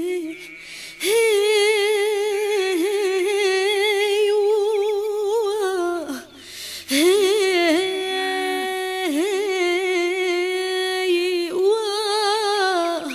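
A solo voice singing a Tunisian Bedouin song with no words, holding long melismatic notes with a wavering vibrato. The notes are broken by two short pauses, one just after the start and one about six seconds in.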